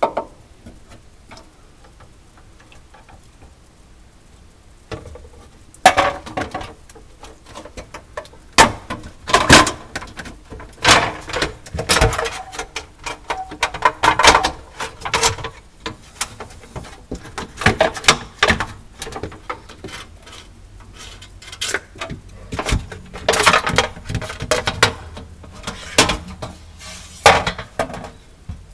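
Irregular knocks, clicks and clinks of hands working on plastic and metal parts and wiring inside a refrigerator compartment, starting about five seconds in after a quiet stretch.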